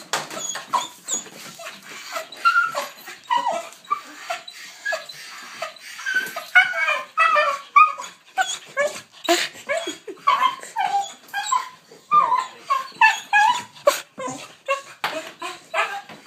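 An excited dog screaming, a rapid, unbroken string of short high-pitched yelps and whining cries, several a second. It is the dog's excitement at the sight of the leash before a walk.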